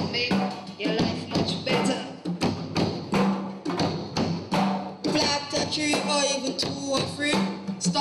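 Live percussion music: congas and a drum kit playing a busy rhythm of sharp hand and stick strikes, with voices over it.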